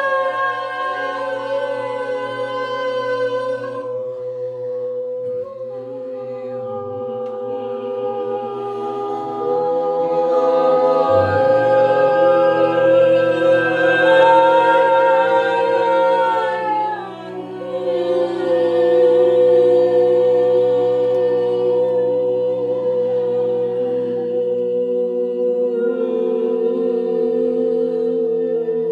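A group of voices toning together without words: long held notes on several pitches at once, some sliding slowly from one pitch to another, with a brief drop in loudness about two-thirds of the way through.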